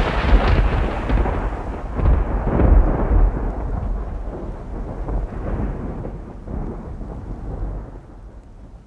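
Thunder sound effect: the long rolling rumble after a thunderclap, swelling a few times and slowly dying away.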